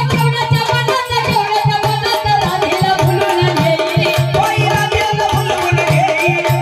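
A woman singing a Marathi gavlan folk song through a microphone, holding long wavering notes, over a steady rhythm of drum strokes with folk percussion accompaniment.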